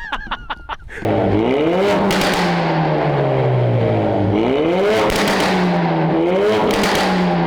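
Ford Focus RS Mk3's tuned 2.3-litre turbo four-cylinder, through a Scorpion cat-back exhaust, revving hard under throttle about three times and dropping back each time the throttle is lifted. There are brief crackles near the peaks.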